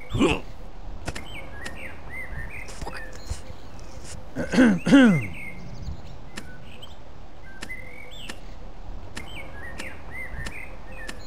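Birds chirping over a steady outdoor background. A short vocal sound falling in pitch comes just after the start, and a louder run of about three falling vocal grunts comes around four and a half to five seconds in.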